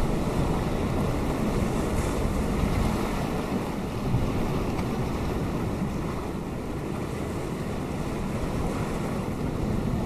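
Atlantic surf breaking on rocks offshore and washing into the tide pools: a steady rushing wash, a little louder in the first few seconds as a wave breaks, then easing.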